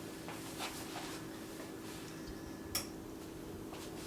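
Faint clicks and clinks of kitchenware being handled, with one sharper click near three seconds in, over a steady low hum.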